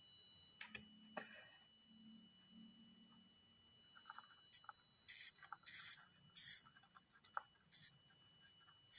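Swiftlet chicks calling: from about halfway through, a run of short, shrill high-pitched chirps, a couple a second, growing louder over a faint steady hum.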